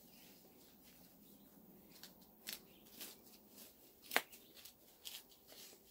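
Hands working and pressing potting soil into a pot around a young tree's roots: a scatter of short gritty rustles and scrapes, the sharpest about four seconds in.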